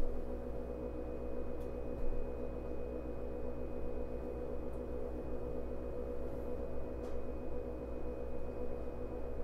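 Cabin of a 105 series electric commuter train standing at a station: a steady hum of the idling electrical equipment with a few faint clicks, no traction motor or wheel noise.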